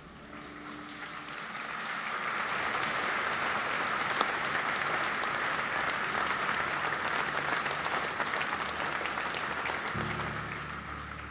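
Audience applauding. The clapping builds over the first two seconds, holds steady, then dies away near the end.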